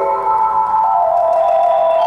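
Solo concert marimba played with mallets: quick repeated strikes blend into several sustained, ringing notes, with a new lower note coming in about a second in.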